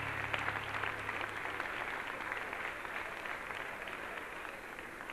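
Audience applauding, with the band's last held low note dying away about a second in; the applause slowly fades.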